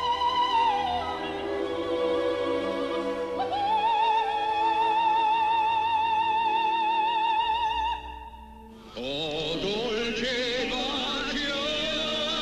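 Operatic singing with orchestra: a voice holds long high notes with a wide vibrato, gliding down once near the start. About eight seconds in the music breaks off briefly, and a different passage of orchestral music with wavering, vibrato-laden lines begins.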